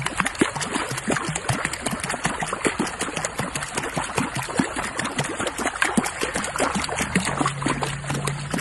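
Splashing, churning pool water, dense with small quick splashes, as a pug puppy paddles through it. A low steady hum joins about seven seconds in.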